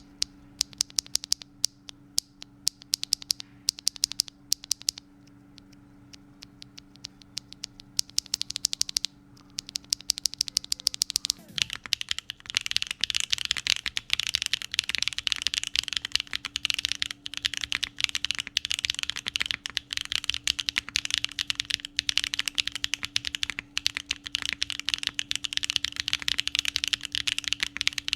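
Mechanical keyboard with factory-lubed Nana pre-tactile switches: keys pressed in short separate runs of clicks for about the first eleven seconds, then fast continuous typing from about twelve seconds in.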